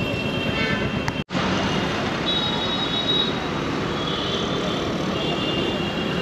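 Motorcycle ride in city traffic: steady wind and road rush over the Royal Enfield Meteor 350's single-cylinder engine, with high-pitched traffic horns sounding three times. The sound drops out for an instant about a second in.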